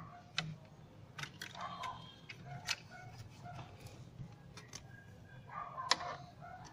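Scattered sharp clicks and taps, the loudest about six seconds in, as hands handle wiring and parts inside a loudspeaker cabinet, over a low steady hum.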